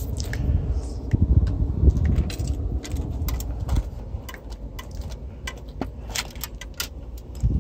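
Small metal objects jangling and clicking irregularly, over low rumbling handling noise close to the microphone.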